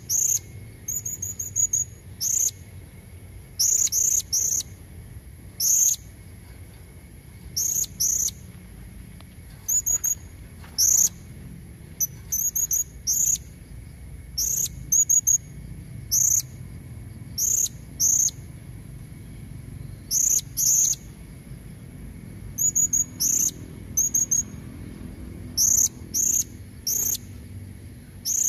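Female blue-crowned hanging parrot (serindit) calling: short, high-pitched chirps, some single, some in quick pairs or brief trills, about one every second or two. A faint steady high tone runs underneath.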